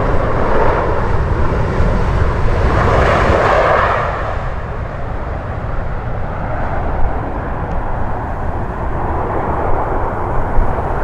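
Jet airliner passing close by, a loud engine roar that is strongest in the first four seconds and then eases to a steadier, lower rush.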